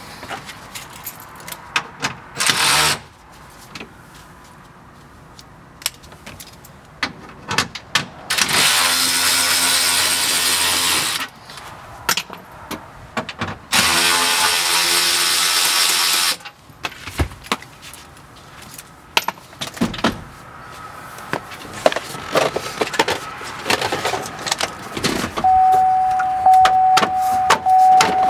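A power driver runs briefly, then twice more for about three seconds each, backing out the two 7 mm bolts that hold the lower steering column cover. Clicks and rattles of plastic dash trim being handled fill the gaps, and a steady high tone starts near the end.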